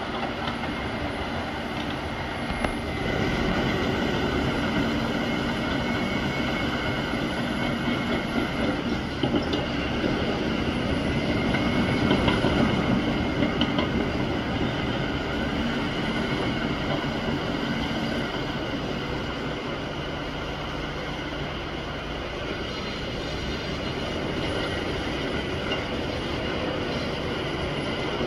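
Crawler bulldozer pushing sand: its diesel engine runs steadily under load, with occasional clatter from the tracks. It grows louder for a stretch in the middle, then eases off.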